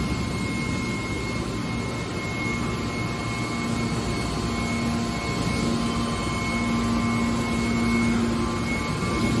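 A hydraulic scrap baler's power unit running, a steady mechanical noise. A low hum from the motor and pump grows stronger from about a third of the way in, over a thin, higher whine.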